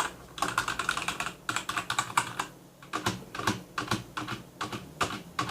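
Typing on a Motospeed CK104 mechanical keyboard with red linear switches: quick runs of keystrokes with a short pause a little past the middle.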